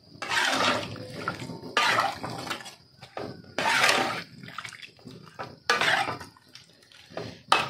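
A metal spatula stirring chunks of kikil and bitter melon through coconut milk in a metal wok. It makes wet sloshing and scraping strokes about every two seconds.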